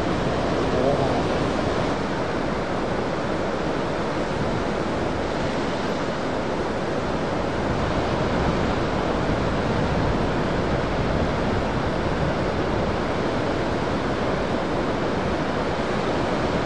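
Heavy ocean surf breaking: a steady, even wash of noise with no single crash standing out.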